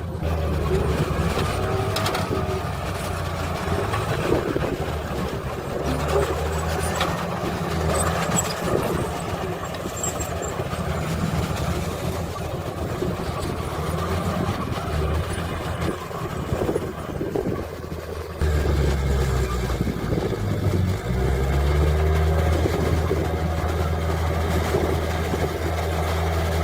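Heavy diesel engines of earthmoving machinery, a bulldozer and dump truck, running and revving, with a few short clanks in the first half. The engine sound changes abruptly about two-thirds of the way through and then holds a steady, deeper note.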